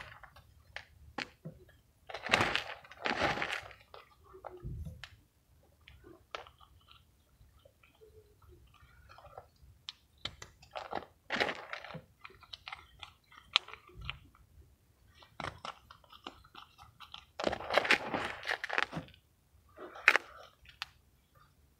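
Fingers squeezing and crushing mothballs and mothball granules in a plastic bowl: irregular crunching and gritty crackles with scattered clicks. The crunching is loudest in a bout about two seconds in and another near the end.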